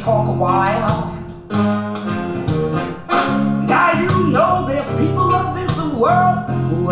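A recorded song played back on a hi-fi system through Triangle Esprit EZ speakers: guitar and bass under a singing voice.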